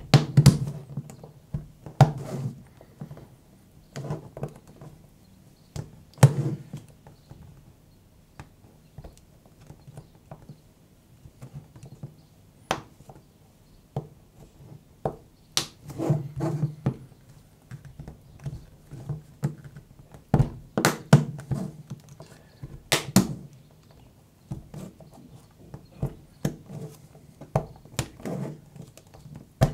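Plastic back cover of a Samsung Galaxy A14 being pried off its frame with an opening tool: irregular clicks and knocks as the side clips pop loose one by one, with short pauses between.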